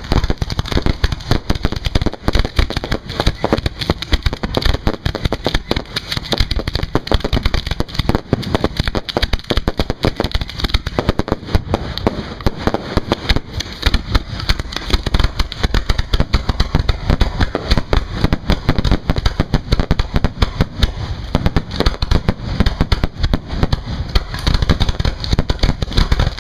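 Fireworks display firing shells and comets in quick succession, a dense, unbroken run of bangs and crackles with no pause.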